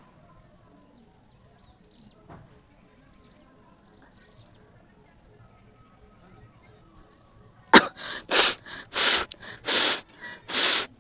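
A woman blowing air hard out through her nose, five short hissing blasts in quick succession starting about eight seconds in, the first one the sharpest, as she tries to force a nose blow or sneeze.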